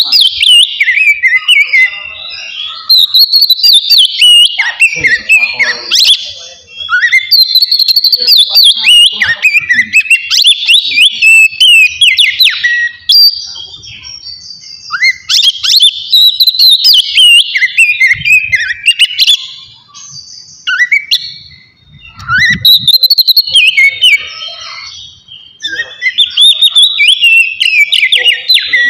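Oriental magpie-robin singing loud, clear whistled phrases in the open 'ngeplong' style, rapid gliding notes in runs of several seconds with short pauses between.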